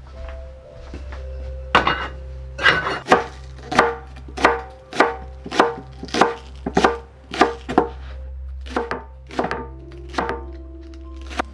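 Chef's knife chopping garlic on a wooden cutting board: a steady run of sharp chops, about two a second, beginning about two seconds in.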